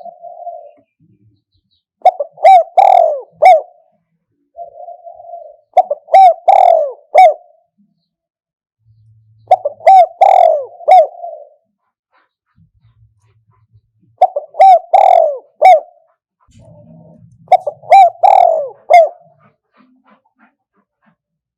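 Spotted dove cooing in repeated phrases about every four seconds, each a few loud coos, some led in by a soft purring note. It is a recorded decoy call used to lure wild doves.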